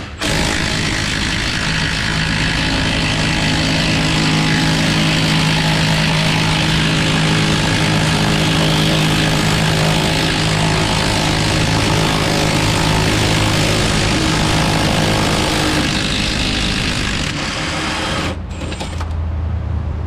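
Cordless impact wrench hammering steadily on a stubborn fuel-tank strap bolt through a long extension, running for about 18 seconds before it stops.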